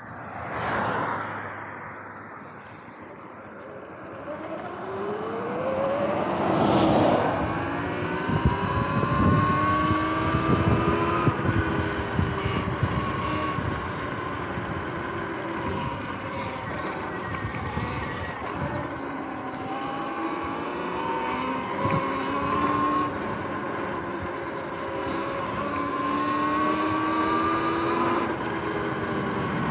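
Sur-Ron X electric dirt bike's motor whining under way: the whine climbs in pitch over a few seconds as the bike speeds up, then rises and falls gently with speed. Wind buffets the microphone throughout.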